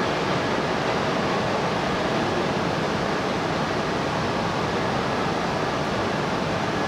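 Steady, even rushing hum with faint steady tones from an E6-series shinkansen standing at a station platform, its onboard equipment running while it waits.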